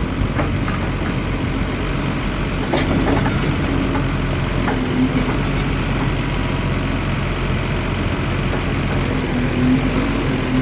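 John Deere 710K backhoe loader's diesel engine idling steadily, with a few short knocks or clanks from the machine, about three in the first five seconds.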